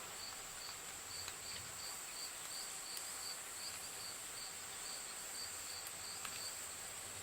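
An insect chirping in the background, a high pulsing chirp about twice a second over a constant high-pitched hiss, with a few faint small ticks.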